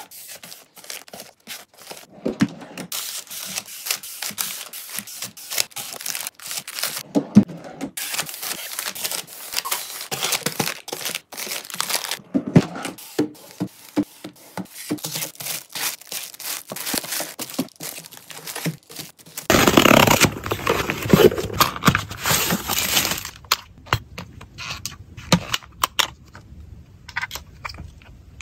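Packaging crinkling and tearing, with many sharp clicks and taps as items are handled and set down; the handling grows louder and busier about two thirds of the way through.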